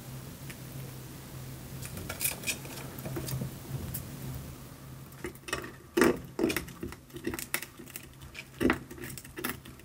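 Richardson's ground squirrel gnawing at duct tape: irregular crinkling clicks and rips, starting about five seconds in and loudest in a few sharp bites.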